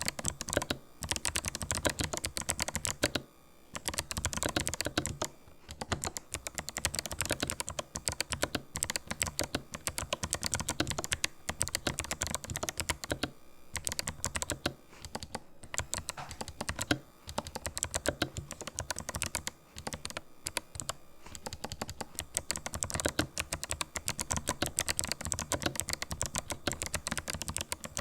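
Fast, continuous typing on a Ninja 87 Pro tenkeyless mechanical keyboard with fully lubricated Kailh White clicky switches, each keystroke a click, broken by a few short pauses.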